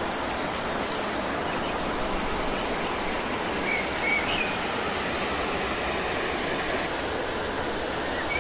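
Steady rushing outdoor ambience with a thin, constant high tone running under it and a few brief bird chirps, two near the middle and one at the end.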